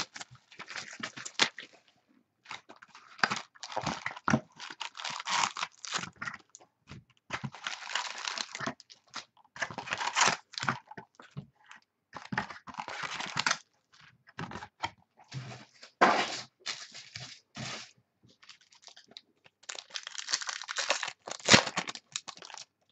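Wrappers of 2013 Platinum football card packs being torn open and crinkled by hand, in irregular bursts with short pauses between.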